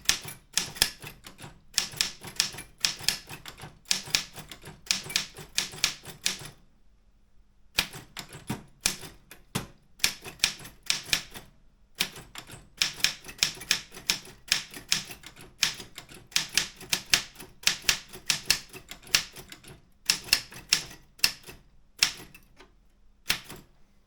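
Optima M14 wide-carriage manual typewriter being typed on: typebars striking the platen in quick runs of sharp clacks, broken by a pause of about a second roughly a third of the way in.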